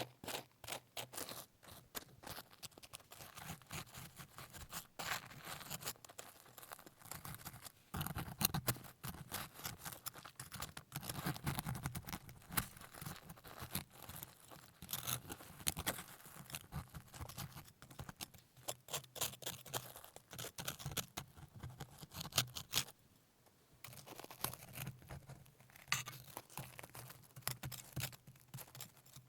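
Close-miked crackly scraping and tearing, with many small clicks, from handling salt-crust-baked pork.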